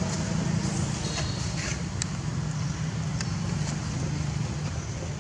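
Steady low rumble of background noise, with a few faint, brief high chirps over it.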